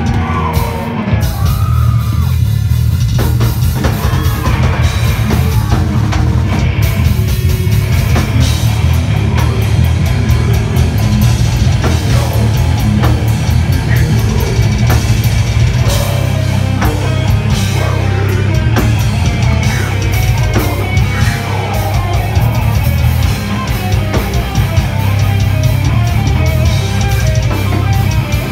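Heavy metal band playing live and loud: distorted electric guitars, bass and fast drumming, with a vocalist shouting into the microphone.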